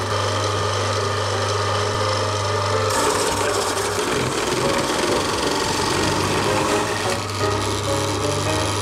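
Chiba Kogyosho Super Oroshi electric high-speed grater running, with a white root pressed into its spinning grating drum: a steady motor hum under a wet rasping grind. From about three to seven seconds in the grinding grows denser and covers the hum, then the steady hum returns.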